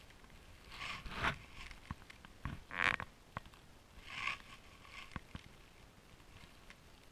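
Snowshoe steps in snow: a few short crunching swishes about a second and a half apart, fading out after about five seconds.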